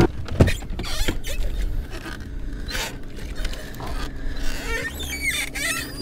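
Clicks, knocks and creaks of a Minn Kota bow-mount trolling motor being unlatched and swung down into the water, over a low steady hum, with a short wavering squeak about five seconds in.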